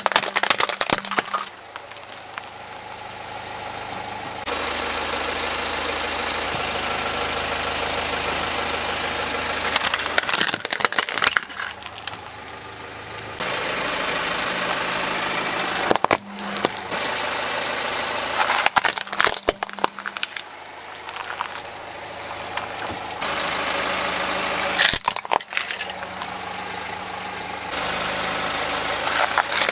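A car tyre rolling over plastic toys and crushing them, with sharp cracks and crunching of breaking plastic in about six separate bursts. Between the bursts a car engine idles steadily.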